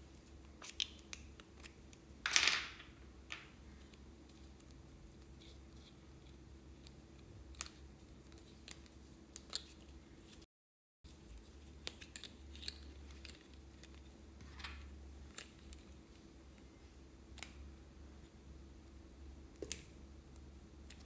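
Small plastic glue sticks being handled: caps pulled off and the sticks twisted up, giving sparse quiet clicks and taps, with one louder short scrape about two and a half seconds in.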